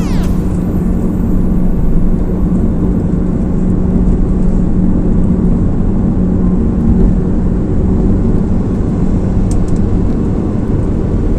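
Car driving: a steady low rumble of engine and road noise with a constant hum.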